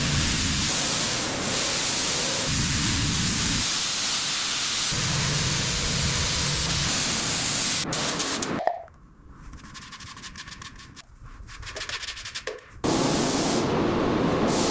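Loud, steady hissing rush of noise that stops about nine seconds in, leaving a quieter stretch with faint ticks, then starts again about four seconds later.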